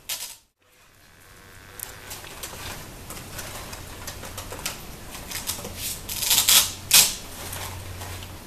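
Light clicking and crinkly rustling of artificial floral stems and greenery being handled and tucked into an arrangement, with two louder rustles about six and seven seconds in. A brief silent gap comes just after the start.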